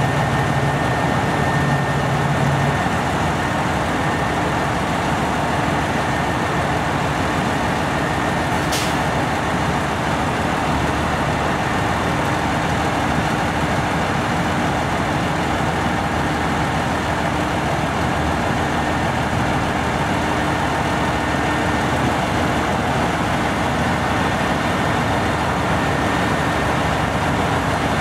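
Diesel railcars idling: the engines of a KiHa 189 limited-express set and KiHa 47 local railcars running in a steady drone. A brief sharp click about nine seconds in.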